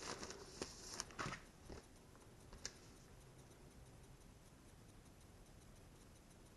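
A few soft rustles and taps from a paper manual being opened and handled, fading out after about two seconds, with one small tap a little later. Then near silence with a faint, regular ticking.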